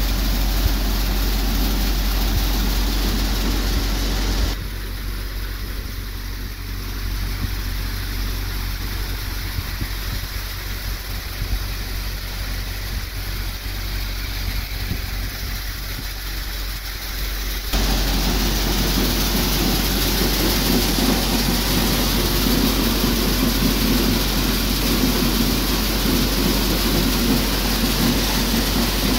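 NJT multicrop thresher running steadily off a Swaraj 742 FE tractor while threshing chickpeas, a loud, even mechanical running noise. It is quieter for about thirteen seconds in the middle, then loud again.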